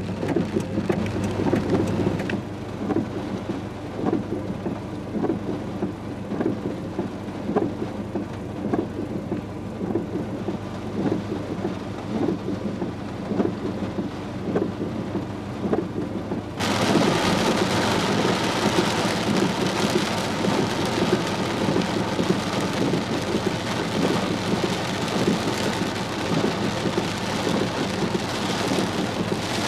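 Heavy hurricane rain pouring down in a steady rushing hiss, with many small patters. About halfway through the sound suddenly turns brighter and louder.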